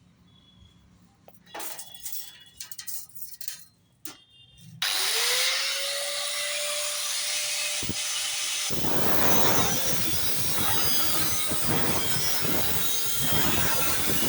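A few light handling clicks, then an angle grinder switched on about five seconds in, its whine rising as the disc spins up and then running steady. About four seconds later the disc bites into metal, and a loud, harsh cutting noise continues to the end.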